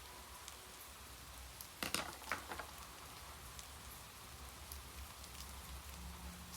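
Steady rain, an even hiss with scattered drop ticks. About two seconds in, a brief cluster of two or three sharp clicks or knocks stands out as the loudest sound.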